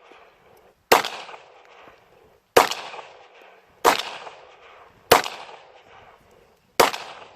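Glock pistol fired five times in slow, uneven succession, about a second to a second and a half apart. Each shot has a sharp crack and a fading echo.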